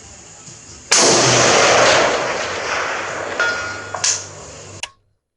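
A single shot from a 7.62x51mm (.308) Galil rifle, a sudden loud report that rolls out and fades slowly over a few seconds. A faint ringing tone follows about two and a half seconds later, which fits the distant steel target being hit. The sound cuts off abruptly near the end.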